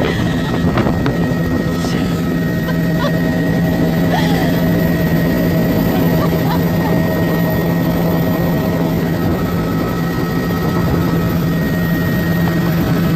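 Helicopter in flight, heard from inside the cabin: a loud, steady drone of engine and rotor with a constant low hum.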